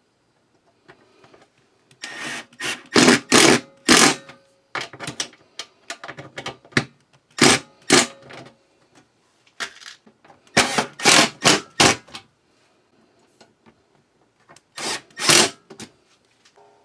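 Cordless drill/driver run in short trigger bursts, drilling holes and driving screws through the box fan's flange into the wooden frame. The bursts come in four groups, with handling noise between them.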